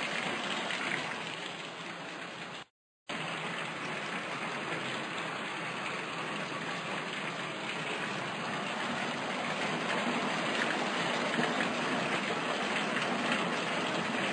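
Nutrient solution pouring steadily into a styrofoam tub, heard as a splashing hiss. It cuts out briefly about three seconds in and grows a little louder in the second half.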